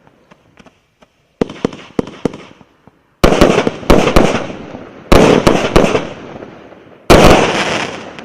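VH8160 64-shot consumer firework battery (0.8-inch tubes) firing in volleys: a smaller cluster of cracks about a second and a half in, then three loud volleys about two seconds apart. Each volley is a sharp bang followed by several quick cracks and a fading crackle.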